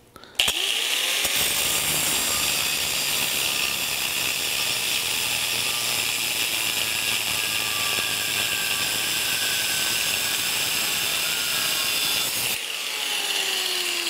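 Electric angle grinder with an abrasive cutoff wheel spinning up and cutting through a steel support bar, a steady high grinding sound. About twelve and a half seconds in the cut ends and the wheel spins down with a falling whine.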